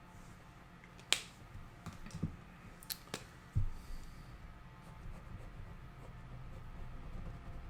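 A few sharp clicks on a desk: one about a second in, two close together around three seconds, then a duller low knock, over a faint steady hum.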